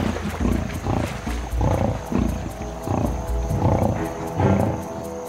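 Lions growling in a run of short, rough growls while feeding on a buffalo kill, over background music with sustained tones.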